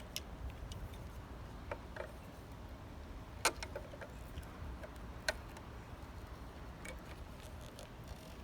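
Faint, scattered clicks and taps of small hard objects being handled, with two sharper clicks about two seconds apart, over a low steady background rumble.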